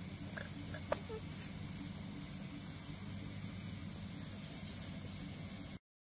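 Steady high-pitched chorus of night insects over a grassy field, with a single sharp click about a second in; the sound cuts off suddenly near the end.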